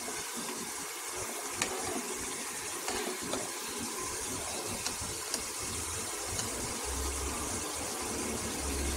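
Pot of milk, rice and grated carrot kheer simmering on the stove: a steady bubbling hiss with a few small pops, and a low rumble that comes up near the end.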